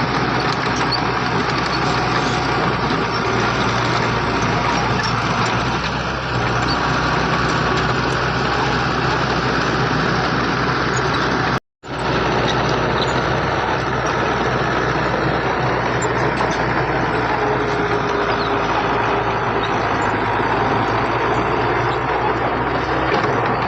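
Heavy diesel earthmoving machinery running steadily: an even engine noise with a low hum and no clear revving. The sound cuts out for a split second about halfway through.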